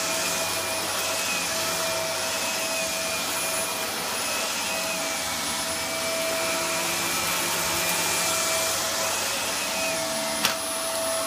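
Vacuum cleaner running steadily as it is pushed over a rug, a steady whine over the motor's rush. There is one sharp click near the end.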